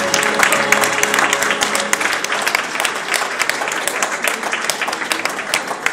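Audience applauding, a dense clatter of many hands clapping. The last held notes of the dance music die away about two seconds in.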